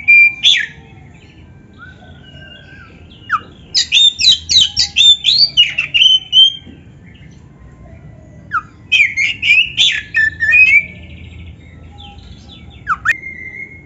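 Oriental magpie-robin (kacer) in full song: loud runs of quick, sweeping whistled notes and chatter in three phrases, with pauses of a couple of seconds between them and a short note near the end.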